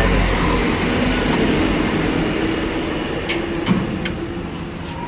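Workshop background with a low vehicle rumble that fades within the first second, over a steady mechanical hum, with a few light metal clinks from tools on the opened engine.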